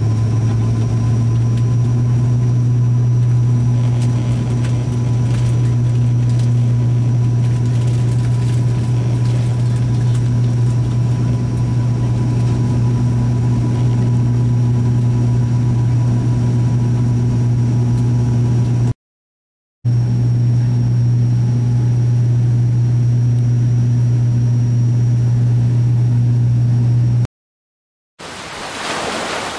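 Aircraft engines heard from inside the passenger cabin: a loud, steady low drone with a higher hum over it. It cuts out twice, briefly, and near the end gives way to the hiss of surf and wind on a beach.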